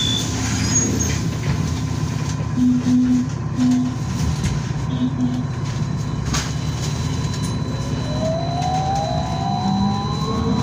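Cabin noise of a BKM-32100D trolleybus under way, a steady low rumble and hum. From about eight seconds in, the traction motor's whine rises steadily in pitch as the trolleybus picks up speed.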